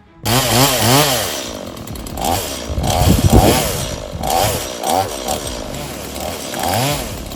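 Chainsaw cutting, its engine revving up and down over and over. It starts abruptly, and the loudest, harshest stretch comes around the middle.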